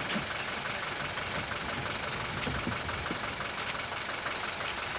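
Steady outdoor background rumble and hiss, with faint scattered clicks.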